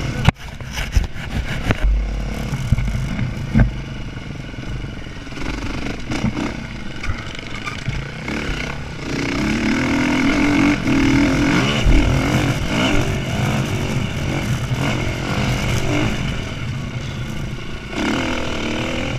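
Dirt bike engine revving up and down under hard riding over rough trail, heard close from the bike, with knocks and clatter over bumps, the sharpest a fraction of a second in.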